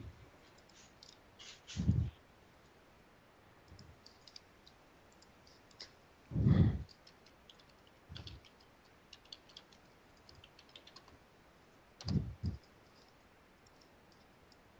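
Typing on a computer keyboard: scattered light key clicks, broken by a few short, dull low thumps, the loudest about six seconds in.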